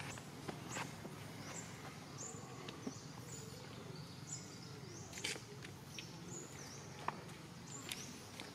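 Outdoor ambience: a short, high chirp repeats about once a second over a steady low hum, with a few scattered soft clicks and rustles.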